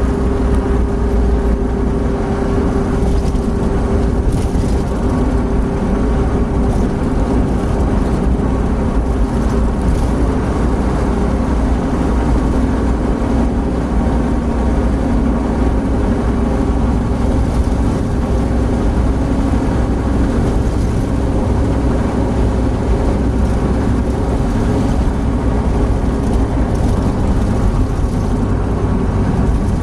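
Opel Blazer at highway cruising speed, about 100–110 km/h, heard from inside the cabin: a steady engine drone with a low hum, mixed with tyre and wind noise.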